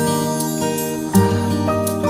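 Background music: gently plucked and strummed acoustic guitar, with a new chord struck about a second in.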